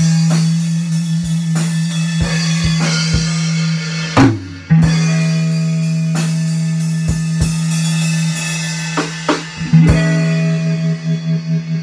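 Guitar and drum kit playing together: the guitar holds a long, low sustained note, changing it briefly about four seconds in and again near ten seconds, while the drums keep a steady beat of kick, snare and cymbal hits.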